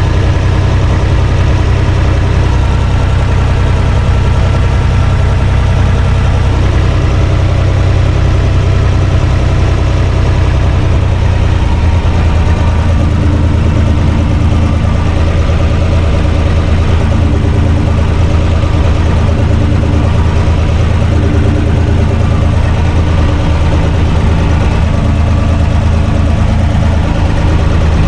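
Universal U445 DT tractor's diesel engine running steadily, heard from inside its cab while pulling a trailer loaded with firewood; the engine note shifts slightly about twelve seconds in.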